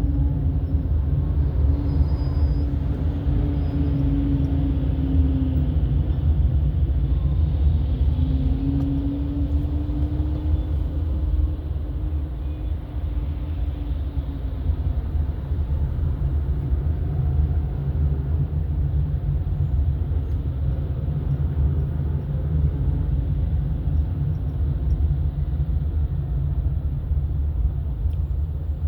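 Car driving on the road: steady low engine and road rumble, with the engine note gliding down and then up and down again in the first half.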